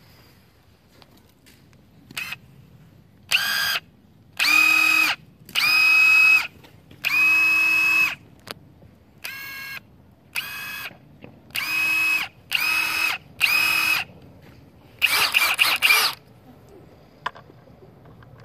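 Cordless brushless impact tool motor spinning freely in about nine short trigger pulls, each a steady whine, then about a second of rapid rattling impact hammering near the end.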